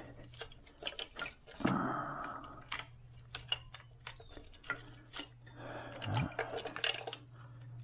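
Irregular clicks, taps and rustling from hands working a 1996 Ford Mustang's engine wiring harness, with plastic connectors and clips knocking against the engine parts, over a steady low hum.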